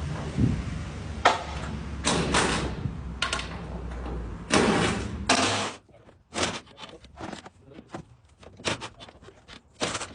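Metal clanks and bangs from work on the steel silo door and rings, over the steady low drone of a running engine. About six seconds in the engine sound stops abruptly, and only lighter, scattered knocks follow.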